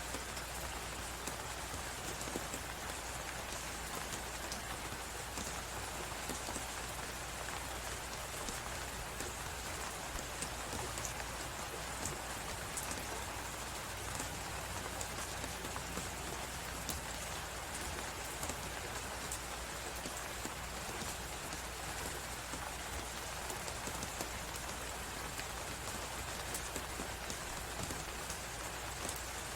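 Crackling fireplace over a steady blizzard wind: a constant hiss and low rumble with many small, quick pops scattered through it.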